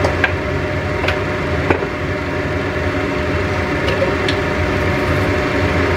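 Steady mechanical hum of a kitchen fan, with a few sharp pops from red sauce simmering in a stainless-steel wok on an induction hob.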